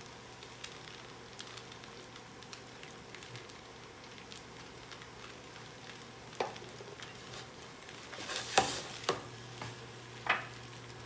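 Food sizzling faintly in a frying pan over a low steady hum, with a few sharp knocks and clatters in the second half, the loudest about eight and a half seconds in.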